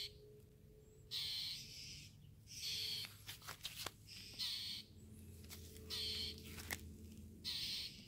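Harsh, raspy mobbing calls from birds attacking a perched great horned owl, repeating about every second and a half, five calls in all.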